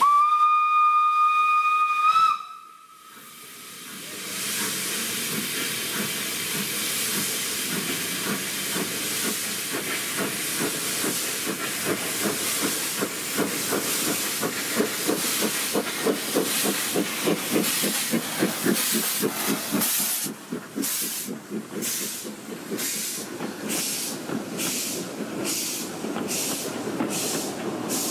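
A steam tank locomotive sounds one steady whistle for about two seconds, then starts away with its train. Hissing steam and exhaust beats build into a quick rhythmic chuff as it passes, and the beats come further apart near the end as the coaches roll by.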